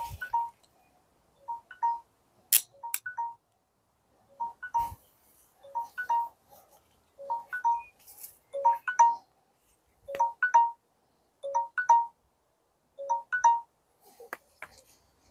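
Mobile phone ringing with a short electronic tone figure of a few notes that repeats about every one and a half seconds. A couple of sharp clicks come about two and a half seconds in.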